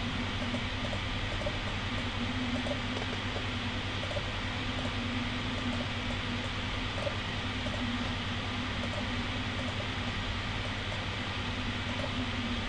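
Steady background hiss with a low hum: room tone with a fan running.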